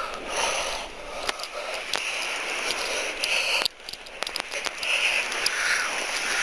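Crackling, scraping handling noise with scattered sharp clicks, from the camera microphone being rubbed and jostled as it is moved about; it drops off abruptly just past halfway and then picks up again.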